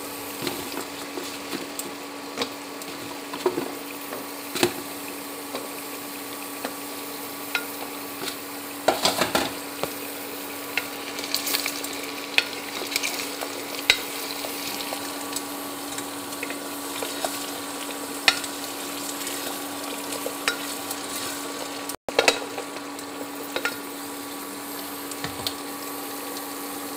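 Chopped jackfruit frying with browned onions in a pot, sizzling steadily. A wooden spatula stirs and scrapes it, knocking against the pot many times, over a steady low hum.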